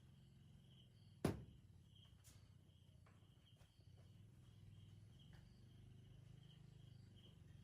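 Faint background: a steady low hum under short, high chirps repeating about every half second, like crickets, with one sharp click about a second in.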